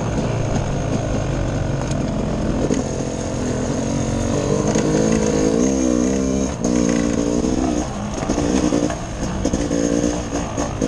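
Dirt bike engine running under a rider on a wooded trail, its pitch rising and falling several times with throttle changes around the middle.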